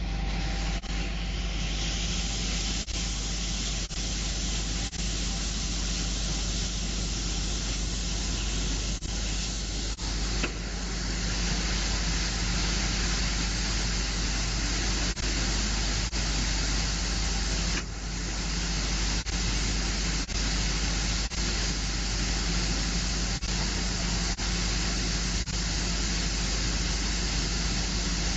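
Steady mechanical running noise with a low hum and a hiss from an automatic glass loading and cutting machine at work, briefly dipping a dozen times.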